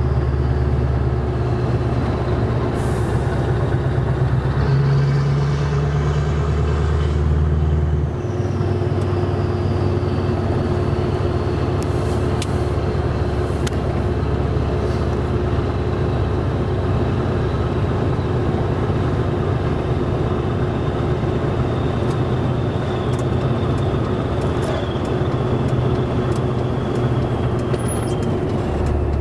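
Scania V8 truck engine heard from inside the cab while driving, running steadily with a deep drone whose note drops about eight seconds in. A faint high whistle runs above it and slowly falls in pitch.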